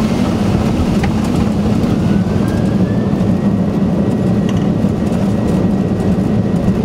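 Boeing 747-400 flight-deck noise on the landing: a loud, steady rumble of engines and airflow, with a faint high whine that rises slightly about two seconds in and then holds steady.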